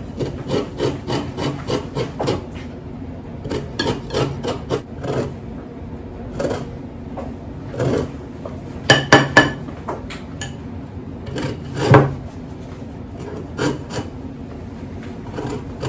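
Lemon peel being rasped on a fine handheld zester grater, in quick repeated strokes with short pauses. A few strokes about nine and twelve seconds in are louder.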